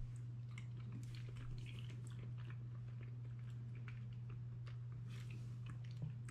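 A person chewing a mouthful of rollmop (soft pickled herring with onion) spread with peanut butter and mustard: faint wet mouth clicks and smacks scattered throughout, over a steady low hum.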